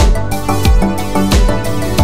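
Background music with a steady beat, about three strong low beats every two seconds, over a held bass line and chords.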